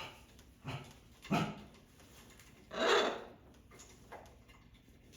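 Pet parrot making three short, harsh calls, the last and loudest about three seconds in.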